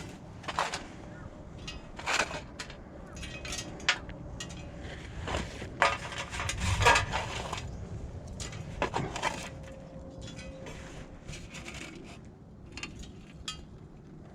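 Irregular clatter of firewood and kindling being handled and laid into a metal Firebox stove: scattered knocks, scrapes and clinks, busiest in the middle.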